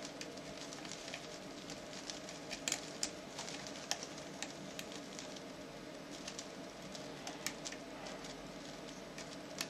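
Faint, irregular small metallic clicks and ticks of a lock pick and tension wrench working the pins inside a 7-pin BEST padlock, over a steady low hum.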